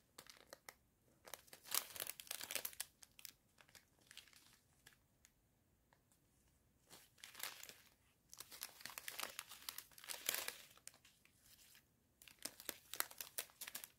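Thin plastic zip bags of diamond-painting drills crinkling as they are handled, in faint, irregular bursts with short quiet pauses between.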